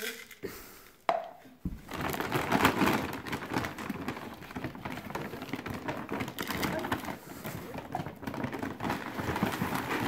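A plastic bag of wild bird seed crinkling and rustling as hands dig into it and scoop out seed, a dense crackle that starts about two seconds in and keeps going.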